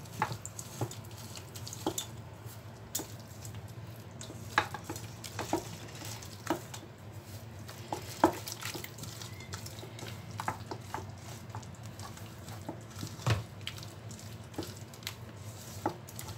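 A hand kneading and mixing wet spice paste in a stainless steel pot: wet squishing, with irregular sharp clicks and taps as the hand and bangles knock against the steel.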